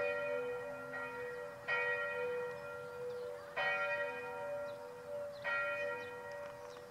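Abbey church bells ringing. A loud strike comes about every two seconds, four in all, over the steady hum of at least two bells still sounding.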